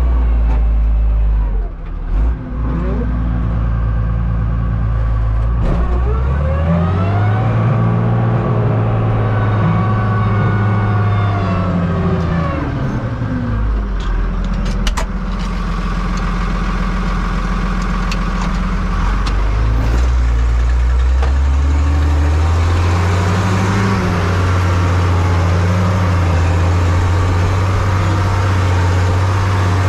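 Fiatagri 100-90 tractor's six-cylinder diesel engine running under load, heard from inside the cab. The engine speed rises about a quarter of the way through, drops back, and rises again past the middle.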